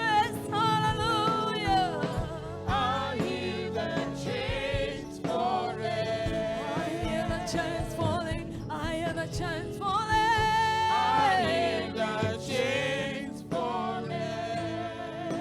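Gospel worship music: voices singing with heavy vibrato and sliding pitch over sustained instrumental accompaniment.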